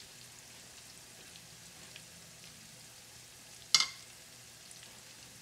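Battered bitter melon pieces frying in oil in a pan: a steady sizzle with small scattered crackles. One sharp, loud pop stands out a little past two-thirds of the way through.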